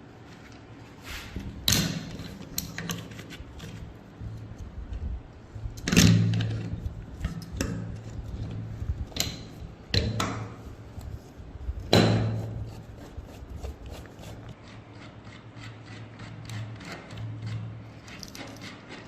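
Tools knocking on gun parts during workshop restoration: a few sharp strikes a few seconds apart, the loudest about 6 and 12 seconds in, over a low steady hum.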